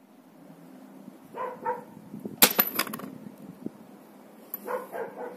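Snow Wolf M24 spring-powered airsoft sniper rifle firing a 0.80 g steel BB into a coin at close range: one sharp crack about two and a half seconds in, followed by a quick rattle of clicks as the BB and coin bounce about. Short pitched sounds come shortly before and after the shot.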